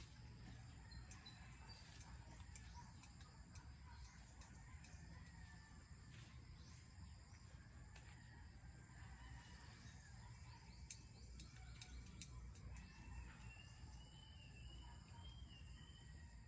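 Faint natural ambience: a steady high insect drone with scattered bird chirps and calls, a few short rising-and-falling calls near the end, over a low rumble.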